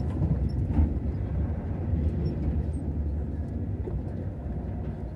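Engine and tyre rumble heard from inside a vehicle's cab as it rolls over block paving and slows to a stop at a traffic light. The low rumble eases off somewhat in the second half.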